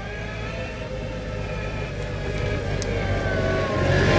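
Hitachi ZW40 compact wheel loader's diesel engine running as it drives up, with a wavering whine over the engine note, growing steadily louder as the machine draws near.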